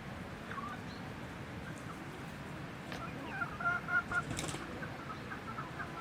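Chickens clucking, with a quick run of short repeated clucks starting about three seconds in, over a steady low background noise.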